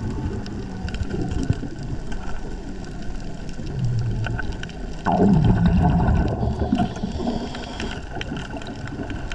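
Underwater bubbling and gurgling from a diver's exhaled air, with a louder surge of bubbles starting suddenly about five seconds in.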